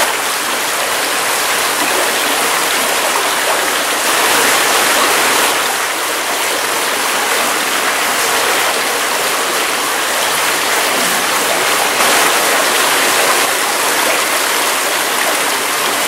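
Stream water rushing and splashing steadily around the paddles of a slowly turning bicycle-wheel waterwheel.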